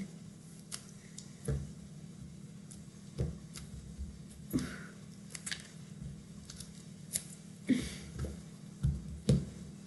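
Slime being handled in the hands: scattered soft clicks and small pops, about a dozen, over a faint steady low hum.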